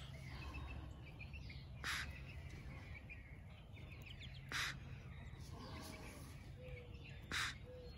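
Faint outdoor birdsong: three short, harsh calls a few seconds apart, with soft chirping between them.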